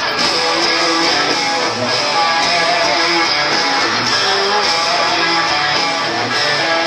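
Loud live band music with guitars, played on an amplified concert stage and heard from out in the audience.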